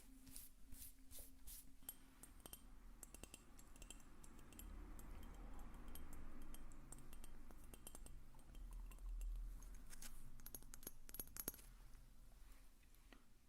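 Light ASMR tapping and handling of small hard objects: many quick, sharp clicks with a faint metallic clink, bunched at the start and again about ten seconds in, over soft handling noise in the middle.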